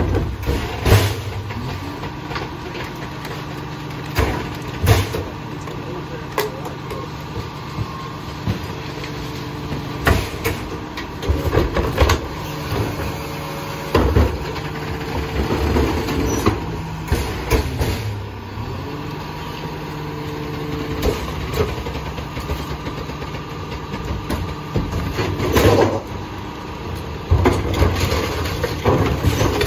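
Rear-loading garbage truck's diesel engine running, with the hydraulic whine of the cart tipper and packer blade rising and fading in several cycles. Sharp bangs of plastic garbage carts being tipped and knocked against the hopper come at irregular intervals.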